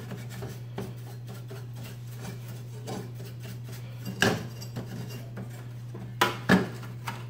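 Brush scrubbing dust off the parts inside a CRT monitor: bristles rubbing, and small scratchy ticks and clicks as it touches the metal chassis and circuit board. Two louder sharp clicks come about four seconds in and near the end, over a steady low hum.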